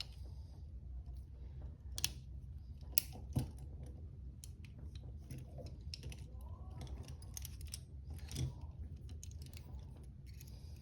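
Steel handcuffs clicking and clinking as a pick works at their double-locked mechanisms, with a few sharper clicks about two and three seconds in and again near eight seconds, over a low steady hum.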